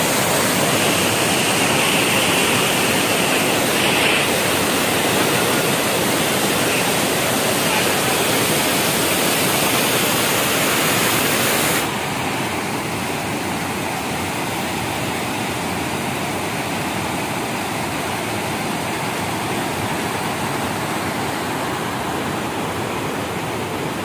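A waterfall in spate, brown floodwater rushing over broad rock ledges in a steady, loud rush of water. About halfway through, the rush drops a little in level and loses some of its hiss.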